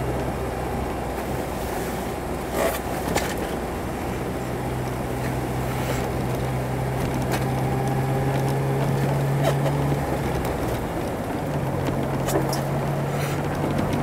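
Jeep driving on a snow-packed road, heard from inside the cabin: steady engine hum and tyre noise, with a few brief knocks. The engine note drops away about ten seconds in and picks up again soon after.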